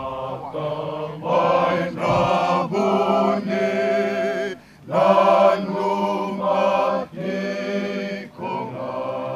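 A group of voices singing a Fijian meke chant in harmony, in phrases of a second or so with short breaks between them and a clear pause about halfway through.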